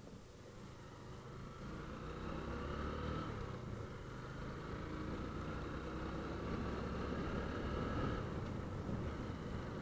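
Motorcycle engine running as the bike rides along a paved street, getting louder over the first few seconds and then holding steady, with road noise.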